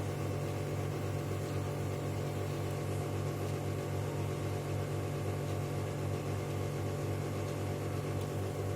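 Steady low electrical hum with a slight regular flutter.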